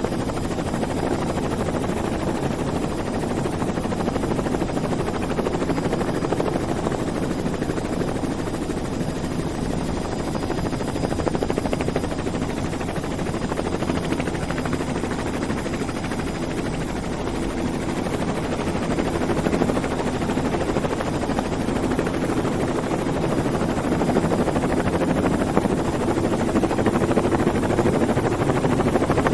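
Steady, fast-pulsing mechanical noise with a deep rumble, running without a break and growing slightly louder near the end.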